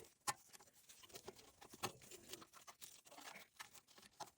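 Faint, scattered clicks and light rustling of small parts and tools being handled during work on a snowblower carburetor.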